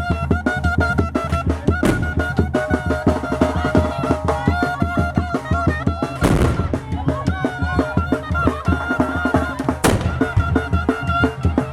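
A traditional chirimía band playing: a reedy wind melody over fast, steady drumming. A short burst of noise cuts across the music about six seconds in, and a sharp crack comes near ten seconds.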